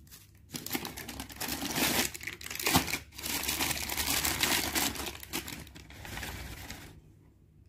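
Thin plastic packing bag crinkling as a bagged speaker is lifted out of a cardboard box, with one sharp knock about three seconds in.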